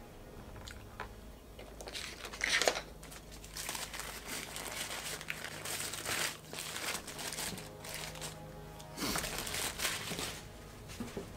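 Paper wrapper of a McDonald's breakfast burrito crinkling and rustling as it is unwrapped and crumpled by hand, in a run of bursts with the loudest about two and a half seconds in, over background music.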